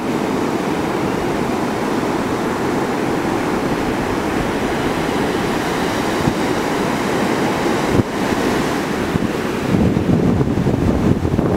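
Ocean surf: a steady rush of breaking waves. Wind buffets the microphone, with a gusty low rumble growing in the last couple of seconds. A short click comes about eight seconds in.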